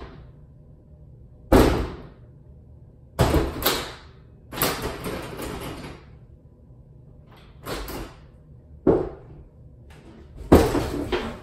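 A closed interior door being banged on, with about seven loud, irregular thuds and slams and a longer rattling stretch about five seconds in.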